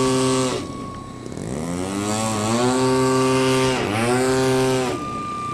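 Model aircraft engine running, its pitch dropping about half a second in, climbing back over the next two seconds and holding, then dipping and recovering around four seconds in before cutting off abruptly near the end.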